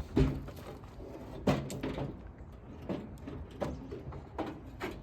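Door of a 1987 Chevrolet Monte Carlo SS being worked open and shut: two loud clunks, one just after the start and one about a second and a half in, then a few lighter clicks. The door's fit against the fender is being checked after a hinge adjustment.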